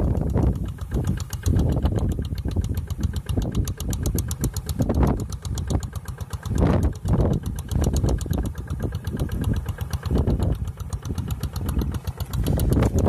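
Single-cylinder diesel engine of a Quick G1000 two-wheel hand tractor running steadily under load as it tills a flooded rice field, heard from a distance, with its exhaust beat repeating evenly. Wind rumbles unevenly on the microphone.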